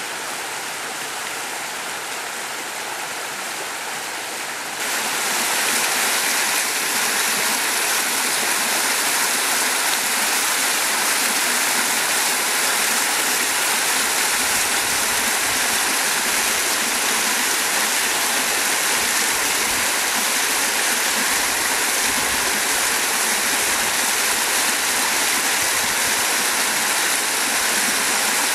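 Rocky mountain stream rushing and splashing over boulders in small cascades, a steady rush of water. It steps up louder about five seconds in and then holds steady.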